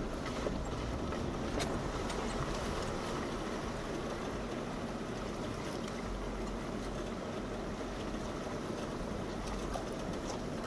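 Jeep Wrangler running in a shallow creek: steady engine noise mixed with a constant rush of water, with a few faint clicks.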